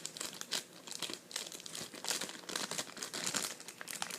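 Slime being squished and stretched in the hands, a run of irregular small clicks and crackling pops.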